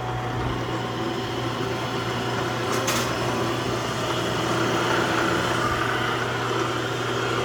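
Republic Lagun FTV-2 milling machine running, its motor giving a steady hum, with one short click about three seconds in.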